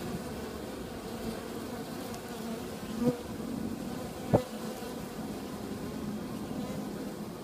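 Honeybees buzzing at a top-bar hive entrance: a steady hum of many bees, with two brief louder sounds about three and four and a half seconds in.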